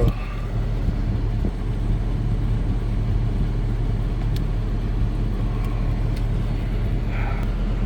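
2007 Jeep Grand Cherokee running at idle with its air-conditioning blower on: a steady low hum under an even rush of air.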